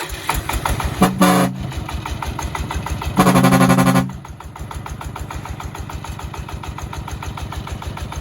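Horn of a công nông farm truck sounded twice, a short honk about a second in and a longer one about three seconds in. Under it the truck's single-cylinder diesel engine idles with a steady rapid beat.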